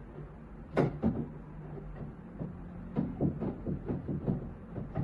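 Knocks and rattling as the spin side of a twin-tub washing machine is taken apart by hand: a sharp knock just under a second in, a second one soon after, then a quicker run of knocks and rattles near the end.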